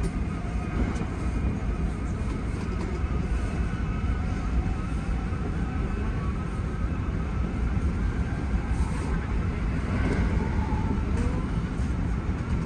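Hankyu 1300 series electric train running, heard from the driver's cab: a steady low rumble of the train in motion.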